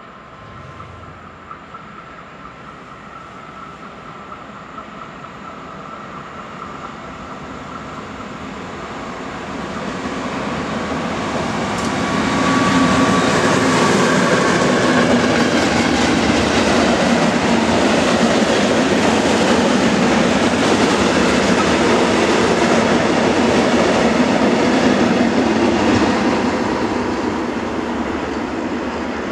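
A freight train hauled by a DB class 203 diesel locomotive approaches, growing steadily louder. It then passes close by for about a dozen seconds, its wagon wheels clattering over the rails, and fades as it moves away near the end.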